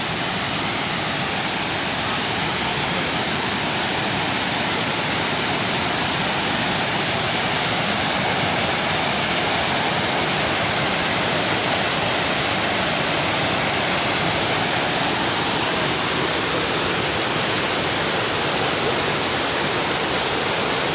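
Water rushing steadily over a dam spillway, a loud, even roar of falling water.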